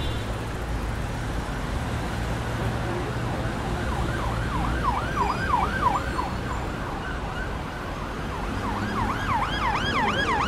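A siren yelping in fast rising-and-falling sweeps, about three a second, in two runs: one starting about four seconds in, the other near the end. Under it runs a steady low rumble.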